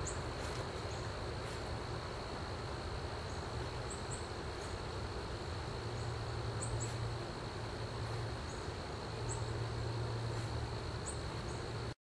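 Quiet outdoor ambience: a steady hiss with a thin high steady tone, scattered short high chirps, and a low hum that swells a few times, cutting off suddenly near the end.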